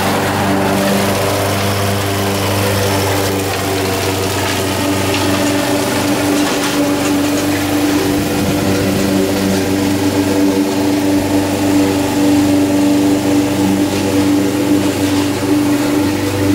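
Honda HR194 push mower's engine running steadily at cutting speed while the mower cuts grass set very low.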